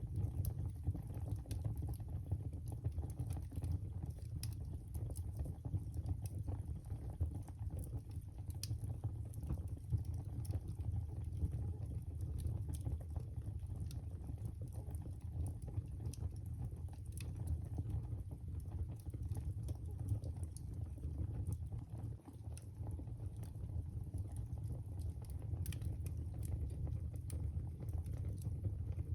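Fire burning in a fireplace: a steady low rumble of flames with frequent, irregular sharp crackles and pops.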